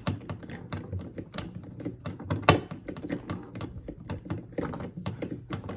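A hand screwdriver turning a long screw into the hard plastic seat back of a Step2 Whisper Cruiser push car, tight going by hand: a run of irregular clicks and knocks, with one louder knock about two and a half seconds in.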